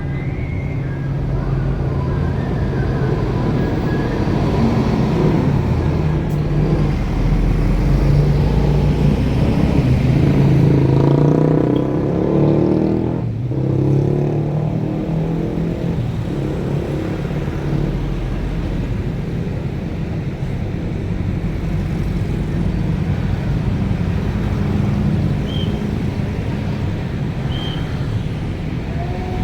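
Bus engines running and passing by: a steady low rumble that swells for a few seconds about a third of the way through, then settles back.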